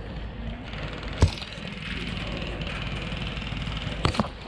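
A single sharp airsoft gun shot about a second in, then two fainter clicks near the end, over a steady low rumble of wind and movement on the microphone.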